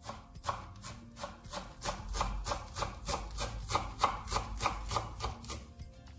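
Kitchen knife rapidly chopping fresh dill and parsley on a wooden cutting board, even strokes about four a second, stopping just before the end.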